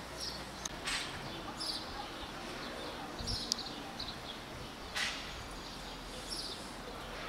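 Small birds chirping over and over in the background, short high chirps repeating throughout. A sharp click or rustle about a second in and another about five seconds in.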